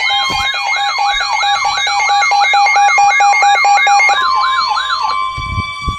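Emergency alert tones: an electronic alert siren sweeps upward over and over, about three times a second, over steady tones. About four seconds in it gives way to a single steady alarm tone, the attention tone that comes before a weather radio warning message.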